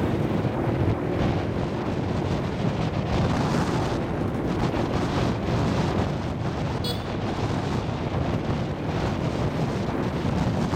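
Wind buffeting the microphone over the steady running of a motorcycle during a ride through town streets.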